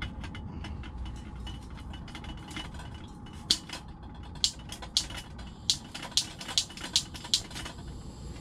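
Piezo igniter of a portable gas stove clicking about nine times, roughly two clicks a second, as the burner is lit to boil water.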